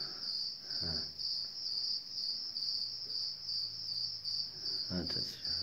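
Crickets chirping: a steady, high, evenly pulsing chirp that keeps on without a break.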